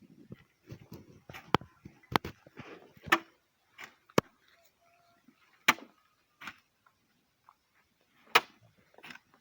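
A series of irregular sharp knocks, about seven loud ones with fainter clicks and rustling between them.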